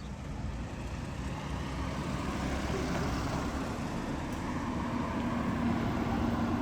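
A steady engine drone growing gradually louder as it approaches, with a steady hum coming in about halfway through.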